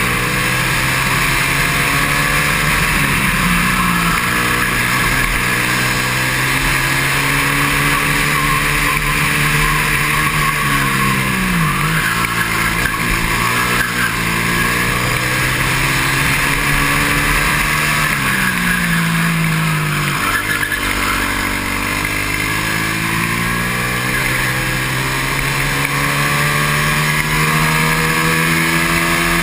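A racing kart's engine heard from on board at full throttle, its pitch falling sharply three times as the kart slows for corners and climbing steadily back up on each following stretch, with a steady rush of wind noise.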